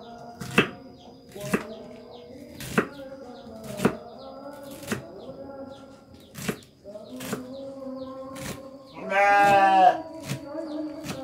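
Kitchen knife chopping bok choy stalks against a wooden cutting board, sharp chops at roughly one a second. Near the end a loud, quavering bleat from a goat or sheep lasts about a second.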